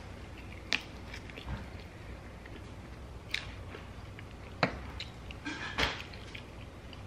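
Close eating sounds: biting into and chewing a sauced chicken wing, with wet mouth noises and about four sharp clicks spread through.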